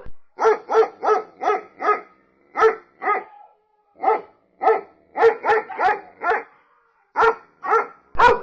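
A dog barking repeatedly in quick runs of several barks, with short pauses between the runs.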